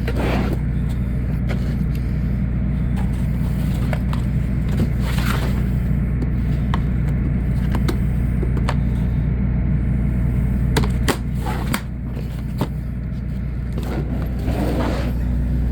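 A steady low mechanical drone, with metal tool-drawer clicks and scrapes as drawers of hand tools are opened and handled.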